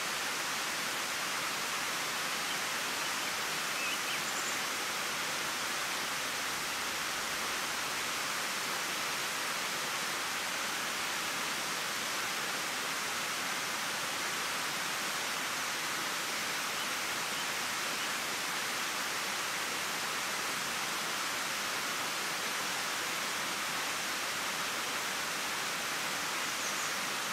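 Steady rushing of a shallow river running over a stepped rock cascade, an even, unchanging hiss of flowing water.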